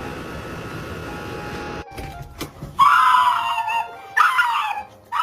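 A dog giving two drawn-out, high-pitched yelping cries, about three and four seconds in, after a sharp click.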